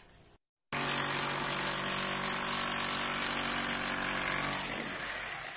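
Electric rotary hammer breaking into a plastered wall. It starts suddenly after a brief silence less than a second in, then runs steadily with a motor hum, easing slightly just before the end.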